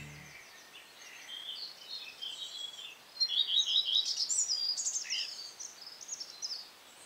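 Several small songbirds singing and calling, a run of quick chirps and trills, busiest from about three to five seconds in, over a faint steady hiss.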